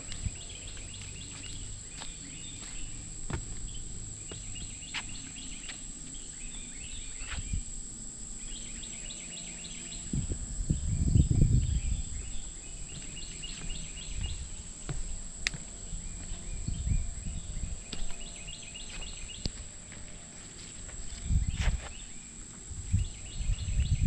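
Woodland ambience with a steady high insect drone and a bird singing short bursts of repeated notes every few seconds. Footsteps sound on a dirt trail and wooden boardwalk, with heavier thuds about halfway through and again near the end.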